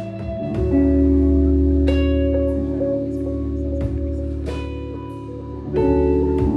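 Live rock band playing a slow instrumental passage: long held guitar chords over a deep sustained bass, with sharp hits every second or so. The chords change about half a second in and again near the end.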